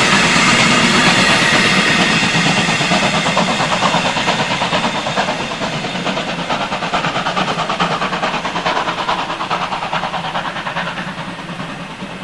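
Passenger coaches of a steam-hauled train rolling past with a rapid wheel clatter, fading steadily as the train draws away.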